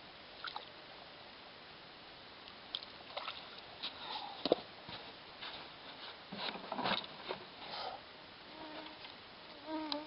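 Scattered light clicks and rustles, then a short low buzz twice near the end, typical of an insect flying close past the microphone.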